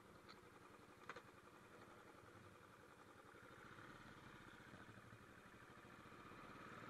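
Royal Enfield single-cylinder motorcycle engine running on the move, faint and gradually growing louder, with a brief click about a second in.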